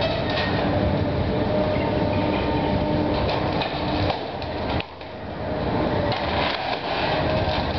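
Cat hydraulic excavators running, with a demolition grapple working through the wooden and sheet-metal wreckage: a steady engine and hydraulic hum under repeated clatter and knocks of debris. The noise eases briefly about four to five seconds in, then picks up again.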